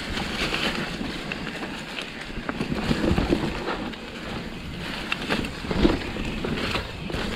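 Mountain bike riding down a leafy, loose dirt trail: wind rushing over the microphone, with tyre noise and scattered knocks and rattles from the bike.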